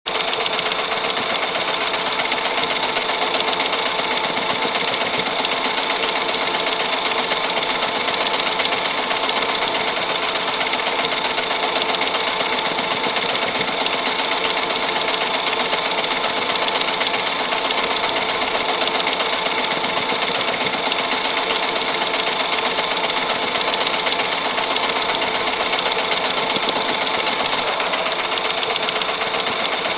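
Antique cine film mechanism, movie camera or Super 8 projector, running steadily: a fast, even mechanical whir that carries on without a break.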